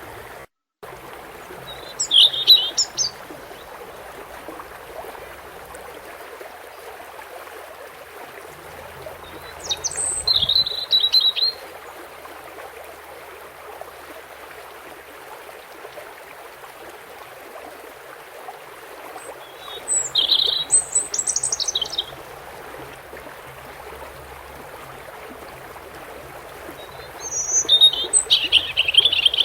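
European goldfinch singing four short phrases of quick, high twittering notes, each about two seconds long, over the steady rush of a flowing stream.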